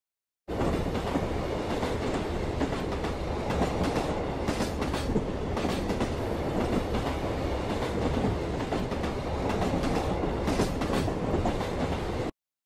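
Diesel railcar on the Himi Line running along the line, heard from inside the carriage: a steady rumble and hum with scattered clicks of the wheels over the rail joints. It starts abruptly about half a second in and cuts off just before the end.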